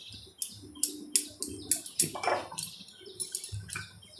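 Small birds chirping rapidly, short high chirps about two to three a second.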